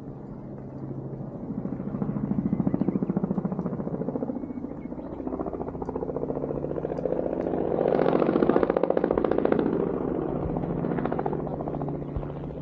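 Helicopter flying past, its rapid rotor chop swelling to its loudest about eight seconds in, then easing off.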